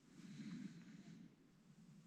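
Near silence, with a faint low murmur in the first second.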